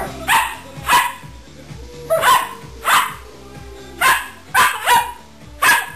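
Dogs barking in play-fighting: short, sharp barks, about nine in irregular bunches, over background music with a steady beat.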